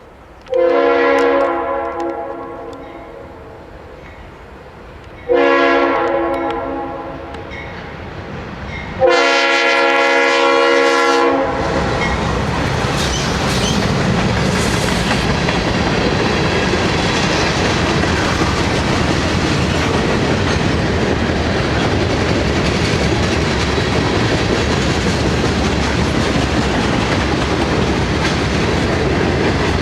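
Horn of a former Conrail GE C40-8W freight locomotive sounding three blasts for a crossing, each a chord of several notes. The first two fade away with an echo, and the third, the loudest, comes as the locomotives draw level. The diesels then pass, followed by the freight cars rolling by with a steady clickety-clack of wheels over the rail joints.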